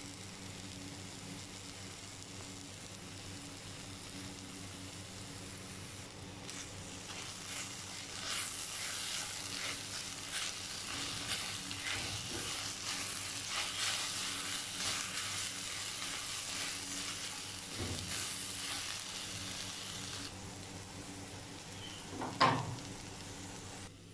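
Sliced okra sizzling in a wok as a silicone spatula stirs and scrapes it, louder from about six seconds in until about twenty seconds, over a low steady hum. A single sharp knock near the end is the loudest sound.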